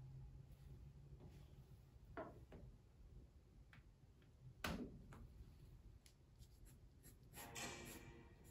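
Mostly quiet room tone with a few soft knocks as the hand grabs and turns the rotating animation disc, the loudest about halfway. Near the end a pencil starts scratching on paper, sketching short strokes.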